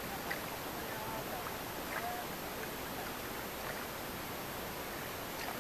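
Single-bladed paddle dipping and pulling through river water from a small boat, a stroke about every second and a half, over a steady hiss of moving water.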